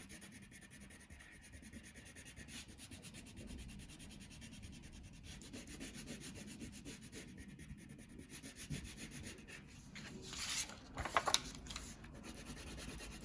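Crayon rubbed back and forth across paper in quick, steady strokes, colouring in an area. A few louder rustling scrapes come about ten seconds in.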